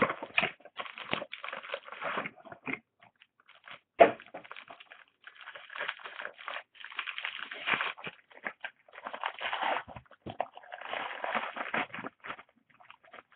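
Hands opening a sports-card box and handling its packaging: cardboard and wrapper rustling in irregular bursts, with a single sharp knock about four seconds in.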